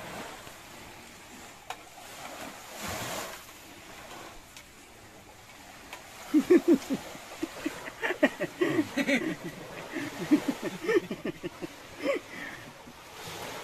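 Steady outdoor background noise, then from about six seconds in a run of short, quickly breaking bursts of people's voices, with no clear words, lasting several seconds.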